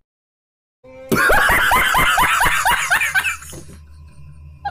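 Laughter sound effect: a person laughing in a quick run of high, squealing bursts, about four a second, starting about a second in and dying away by about three and a half seconds, played as mockery of a wrong guess.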